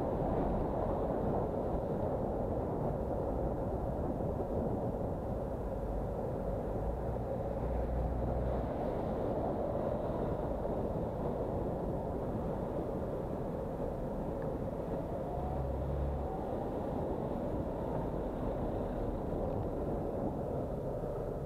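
Steady wind and road noise from riding a bicycle in city traffic, with buses and cars running alongside. Two brief low rumbles break through partway in.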